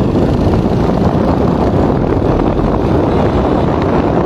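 Wind rushing over the phone's microphone while riding a motorcycle, with the engine running underneath as a steady rumble.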